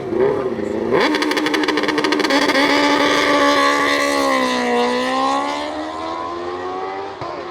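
MotoGP racing motorcycle at high revs passing at speed: its engine comes in suddenly and loudly about a second in, the note sags in pitch and rises again, then slowly fades.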